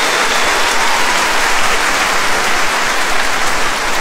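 Large concert audience applauding, a steady, even clapping that holds at one level throughout.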